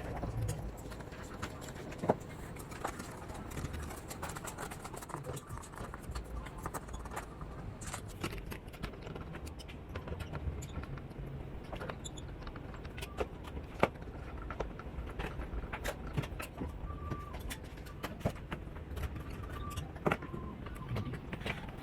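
Irregular light clicks and taps of small hard parts being handled, scattered over a steady low rumble, with a sharper click about two seconds in and another a little past the middle.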